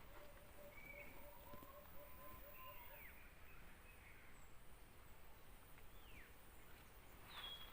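Faint bird calls: a quick run of short, low repeated notes over the first three seconds, with scattered higher chirps and a few falling whistles after.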